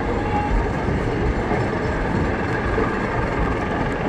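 Dense street traffic: bus and matatu engines running close by in a steady low rumble, mixed with general street noise.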